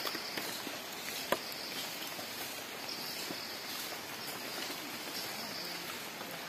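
Forest ambience: a high insect buzz that comes and goes in stretches of about a second over a steady hiss, with faint rustling ticks and one sharp click about a second and a half in.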